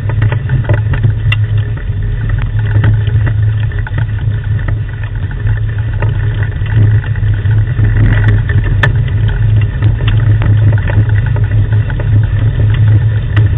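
Steady low rumble of a rig pulled by a team of sled dogs over a gravel track, with scattered clicks and knocks.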